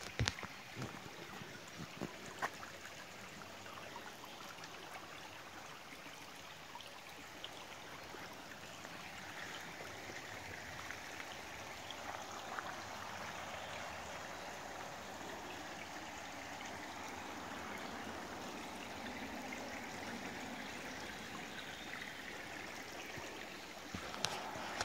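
Steady, even rush of water, growing slightly stronger partway through, with a few light ticks in the first couple of seconds.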